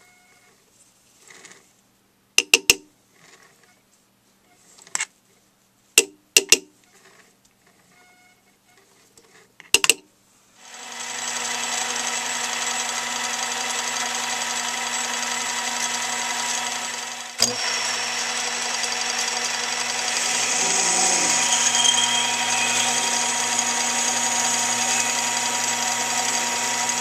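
A few sharp metal clicks and knocks as stock is set in a lathe chuck, then a mini metal lathe starts up and runs with a steady whine while a drill in the tailstock chuck bores into the end of the spinning stock. There is one sharp click in the middle of the run, and it gets a little louder near the end.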